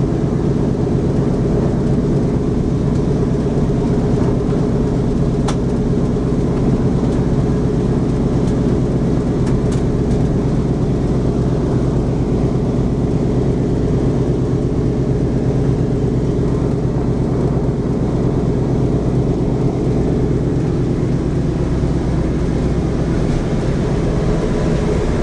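Boeing B-17's Wright R-1820 Cyclone radial engines running steadily, heard from inside the fuselage as a loud, even rumble.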